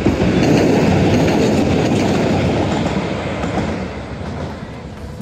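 Tren de la Costa electric commuter train passing close by, with the rumble of its wheels on the rails. The sound is loudest in the first couple of seconds and fades as the train moves away.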